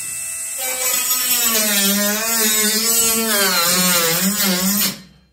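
Small handheld power tool running with its cutting head pressed into a model railway layout. It is steady at first and gets louder about half a second in, its motor pitch wavering under load with a hiss of cutting, then stops shortly before the end.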